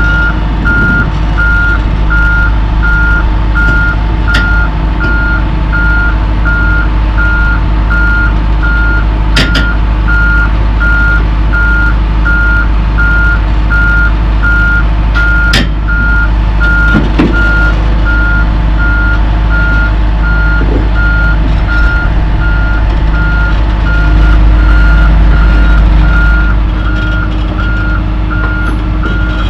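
Diesel engine of a Hitachi Zaxis forestry machine running as it tracks up onto a lowbed trailer, with a steady, evenly repeating backup-alarm beep over it. There are a few sharp clanks in the first half, and the engine gets louder for a couple of seconds about three-quarters of the way in.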